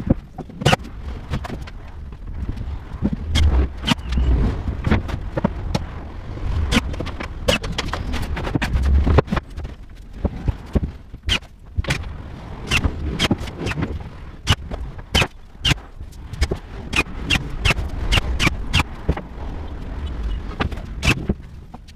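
Wooden cabinet panels being handled and set in place: repeated knocks, bumps and scrapes of board on board, with a few heavy low thumps in the first half and a quicker run of sharp taps in the second half.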